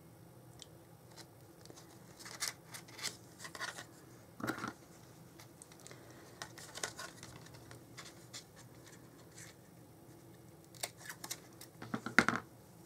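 Scissors snipping cardstock in short, irregular cuts, notching out the corners of a scored pocket piece; a cluster of snips comes near the end.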